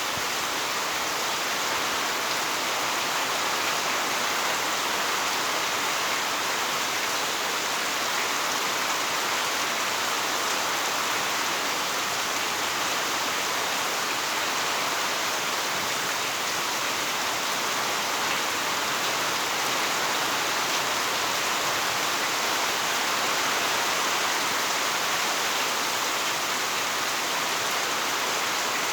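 Heavy rain falling steadily, a dense even hiss of drops with no change in strength.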